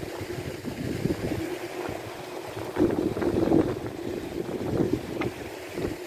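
Wind gusting on the microphone, strongest about halfway through, over a steady mechanical hum from a pond's paddlewheel aerator churning the water.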